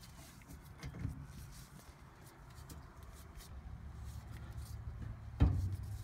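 Disc brake rotor turning on its greased wheel bearings while the spindle nut is tightened with a torque wrench: a low steady rumble and rubbing, with one sharp knock near the end.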